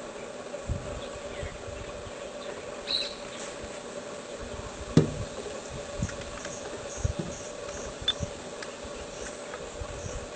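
Grassland ambience: a steady insect drone with a few faint high chirps, scattered low bumps, and a sharp click about five seconds in.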